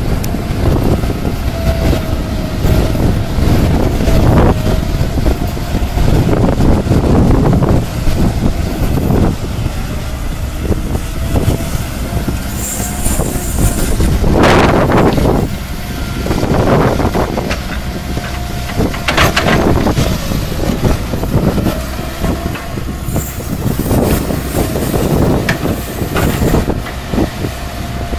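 Liebherr 934 crawler excavator working, its diesel engine running under load with a steady whine. About halfway through come a few loud rushes as the bucket empties earth and stones into a dump truck's body.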